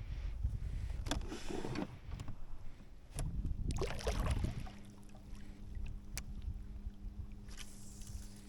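Low rumbling and a few knocks of handling in a small boat, then, about four and a half seconds in, a steady electric hum starts and holds: the boat's small electric motor running.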